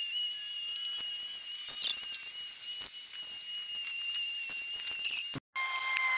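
Aerosol can of high-temperature paint spraying: a steady hiss with a thin whistle, with two brief louder spurts. It breaks off for an instant about five seconds in, then resumes with a lower whistle.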